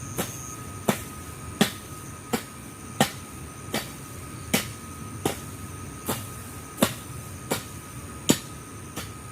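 A hand tool striking repeatedly into weeds and soil to clear them, one sharp chop about every three-quarters of a second in a steady working rhythm.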